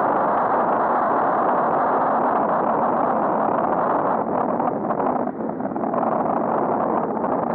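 Steady wind and road noise on the microphone of a camera mounted on a moving bicycle, with no distinct events; it eases slightly about halfway through.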